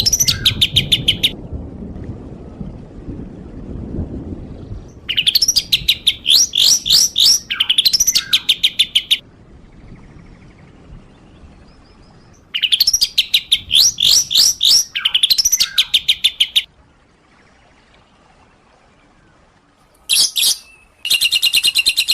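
Songbird song from a masteran training recording. It comes in loud bouts of rapid, sharply repeated chirping notes, several a second, with gaps of a few seconds between them. A denser, faster run of notes starts near the end.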